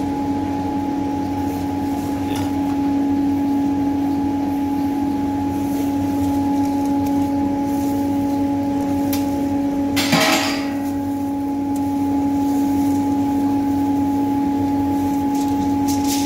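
A steady machine hum with a few fixed tones runs throughout. A brief rustle about ten seconds in is the loudest moment, with a few faint light clicks besides.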